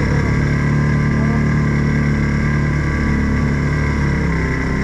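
Odes 800 off-road vehicle's engine running at a fairly steady speed while under way.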